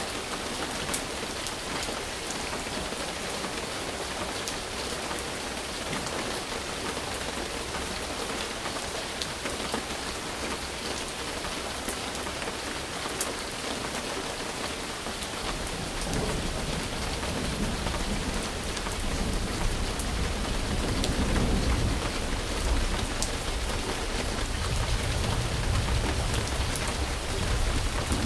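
Steady heavy rain falling, with a low rumble of thunder building in about halfway through and growing louder toward the end.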